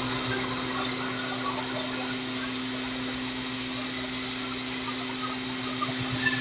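A steady hum with an even hiss, with faint voices in the background near the end.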